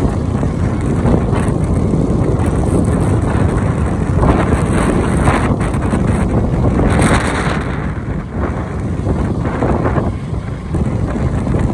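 Wind buffeting the microphone of a phone on a moving motorbike, a loud, steady low rumble with brief hissing gusts about four and seven seconds in, the ride's engine and road noise blended underneath.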